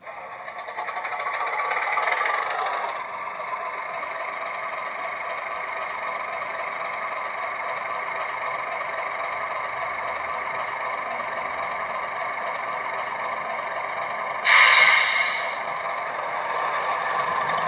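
Sound decoder in an OO gauge BR Class 31 model locomotive playing a diesel engine start-up through the loco's small speaker. The engine sound builds over the first couple of seconds, then settles to a steady idle. There is a louder burst of about a second near the end.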